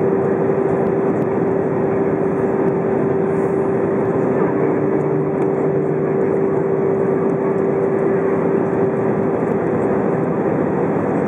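Airbus A319 cabin noise on approach: a steady rush of airflow and engine noise with a steady hum, which weakens near the end.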